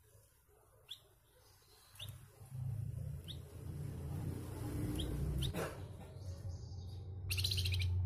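Caged flamboyan songbird giving short, sharp chirps every second or so, then a harsh, rapid rattling call near the end. A low hum runs underneath from about two seconds in.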